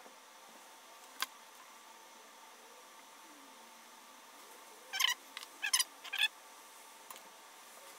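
Light clicks and rattles of wires and small soldering parts being handled on a tabletop: one click about a second in, then a quick cluster of several sharp clicks about five to six seconds in, over quiet room tone.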